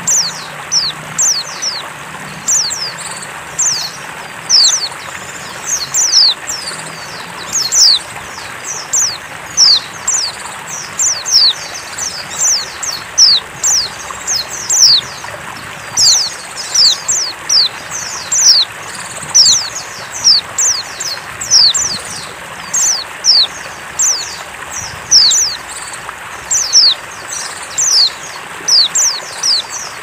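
Female white-eye (pleci) calling: a rapid run of thin, high chips, each a quick downward slur, about two or three a second in uneven runs over a steady hiss. This is the female's call used to lure male white-eyes into singing.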